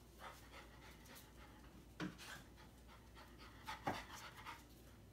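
Young puppy panting faintly in short, irregular breaths.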